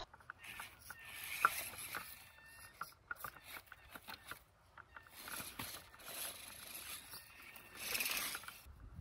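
Small RC rock crawler picking its way over granite rock: scattered light clicks and scrapes of its tyres and chassis on stone, with a faint whine for a moment about a second in.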